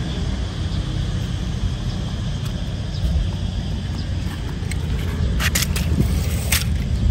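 Steady low outdoor rumble, with a few short crackles of grass being brushed past the microphone about two-thirds of the way through.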